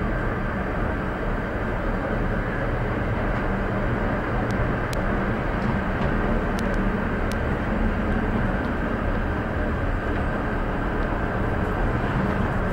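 Steady running noise inside a moving cable-car gondola: a low rumble and hum under a thin steady whine. A few faint ticks come around the middle.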